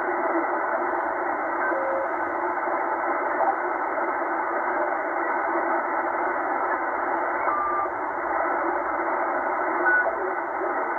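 Tecsun H-501X shortwave receiver in upper-sideband mode giving a steady hiss of static and band noise while being tuned up through the aeronautical band, with a few brief whistle tones passing as signals are tuned through.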